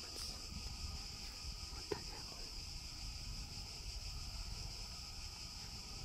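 Steady high-pitched insect chorus in a summer pine forest, with a single sharp click about two seconds in.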